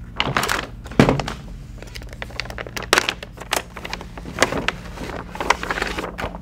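Handling noise: a couple of sharp knocks as a portable radio is set down on a table, then the crinkle and rustle of a metallized anti-static EMP bag being opened and a radio pulled out of it.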